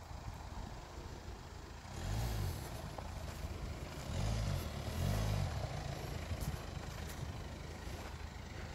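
BMW X1 E84 xDrive's 177 hp four-cylinder diesel engine with automatic gearbox running under load as the SUV crawls over sandy humps, with short revving surges about two, four and five seconds in.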